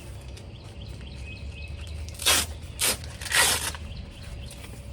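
Hook-and-loop (Velcro) straps on a new set of horse fly boots being torn open, three sharp rasping rips in quick succession about two seconds in, the last one the longest, with faint bird chirps behind.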